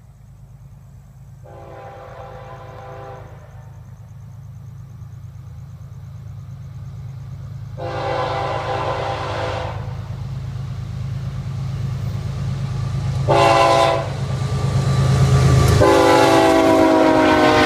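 Horn of a freight train led by three GE ES44C4 (Evolution-series) diesel locomotives sounding the grade-crossing pattern: two long blasts, one short, then a final long blast begun near the end. Beneath it the low rumble of the diesel engines grows steadily louder as the train approaches, then drops in pitch as the lead locomotive passes close by.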